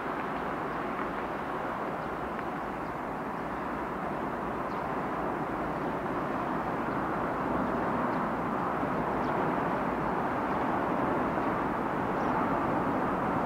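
Steady rushing noise of a distant vehicle, slowly growing louder.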